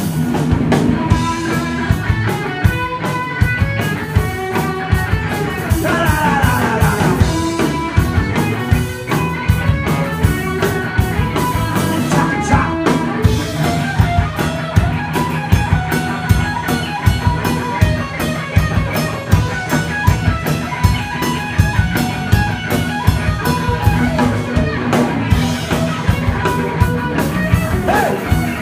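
Live rock band playing, with guitar over a steady drum-kit beat.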